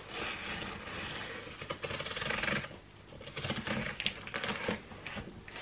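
A small blade cutting along packing tape on a cardboard box, scraping through tape and cardboard in two long strokes with a pause between, plus a few clicks.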